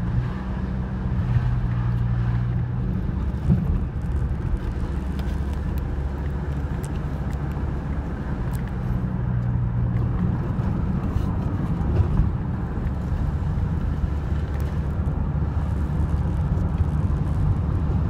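Car driving, heard from inside the cabin: a steady low engine drone and tyre rumble on the road, with the engine's hum shifting in pitch a few times.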